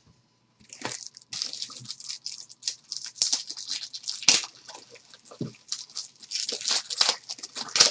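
Trading cards and pack wrappers being handled: dense, irregular crinkly rustling with many small clicks, starting about half a second in, with one sharper click around the middle.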